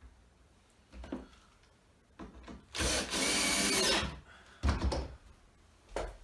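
Cordless drill driving a screw into a pallet-wood slat, running for just over a second before it stops, followed by a heavy knock and, near the end, a lighter one.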